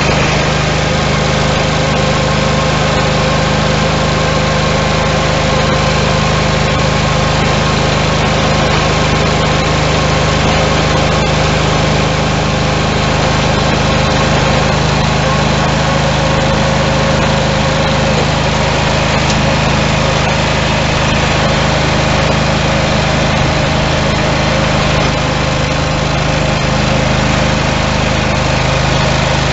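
Simplicity 16 GTH garden tractor engine running steadily, driving its front-mounted single-stage snowblower as it clears snow, with a constant hiss of snow being thrown over the engine note.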